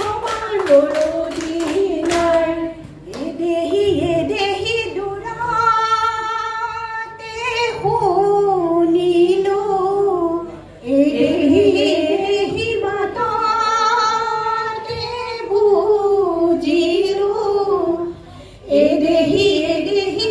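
Women singing an Assamese Jeng Bihu song in long, held phrases, with brief pauses between lines. Hand clapping keeps the beat for the first couple of seconds.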